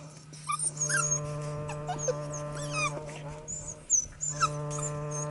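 Border collie puppies whimpering and yipping in short, high, wavering squeaks, several sharp ones standing out, over a steady droning hum.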